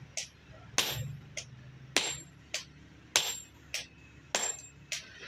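Hammer blows on a forging top tool held against red-hot steel on an anvil, shaping an adze blade. There are four heavy ringing strikes about a second and a quarter apart, each alternating with a lighter metallic clink.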